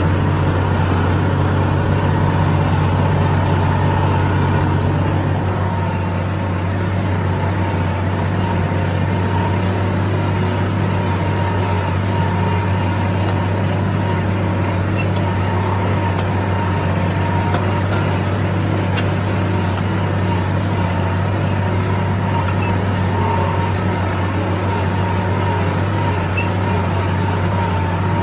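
Farm tractor's diesel engine running steadily under load while it pulls a disc harrow through the field.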